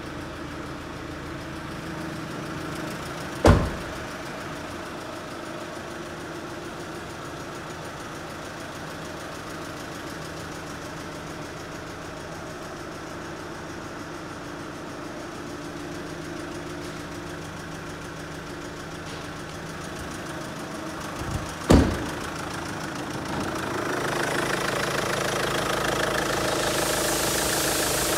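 A Chevrolet Captiva (Daewoo Winstorm) 2.0 VCDi four-cylinder turbo diesel idling steadily. It grows louder and brighter near the end as the microphone nears the open engine bay. Twice, a sharp thump of a car door being shut stands out above the idle.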